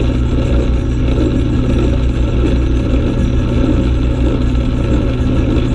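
Metal lathe running with its chuck spinning a workpiece: a loud, steady machine drone.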